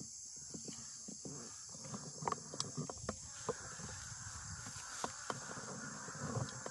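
Steady high drone of insects, with irregular rustling and small knocks from moving through ferns and handling the phone.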